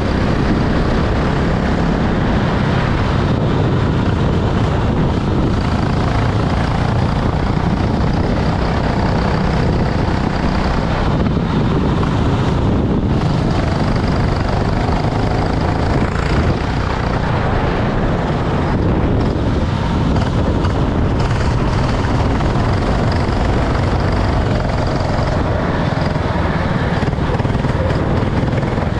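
Racing go-kart engine running steadily, under a dense, continuous rushing noise.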